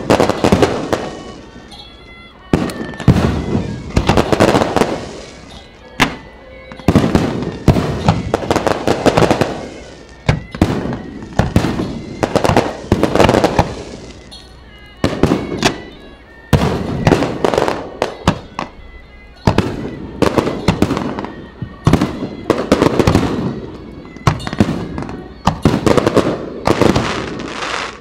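Aerial fireworks shells bursting in rapid volleys, booms mixed with crackling, each volley a few seconds long with short lulls in between.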